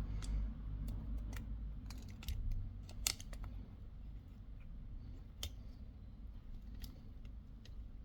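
Scattered light clicks and ticks of small hand tools, about a dozen spread irregularly, as a replacement resistor is fitted into the thermostat's circuit board, over a faint low hum.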